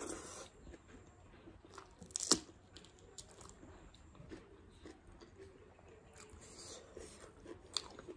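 Chewing and biting sounds of a person eating, with scattered crisp clicks and crunches; the sharpest comes about two seconds in, another near the end.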